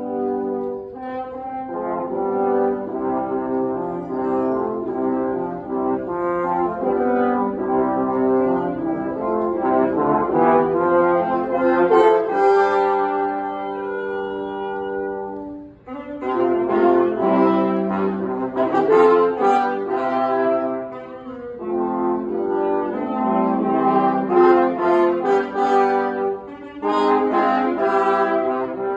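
French horn, alto saxophone and two trombones playing sustained four-part chords in a barbershop-style arrangement. About halfway through, a held chord cuts off for a brief breath before the quartet comes back in.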